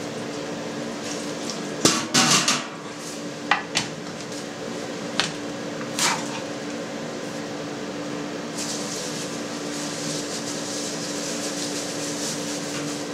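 Stainless steel trays and a plastic cheese mould being handled on a table: about half a dozen sharp knocks and clanks in the first six seconds. From about eight seconds in comes a soft steady rustle of cheesecloth as the pressed cheese is pulled from the mould, over a low steady hum.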